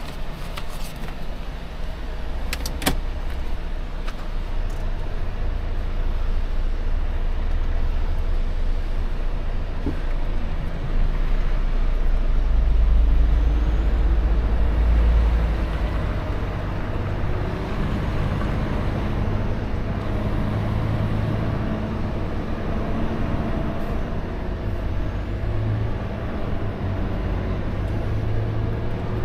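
Heavy truck's diesel engine running under way with a steady low rumble that swells from about twelve seconds in and eases after about sixteen seconds, the engine note shifting in pitch later on. A couple of sharp clicks sound about three seconds in.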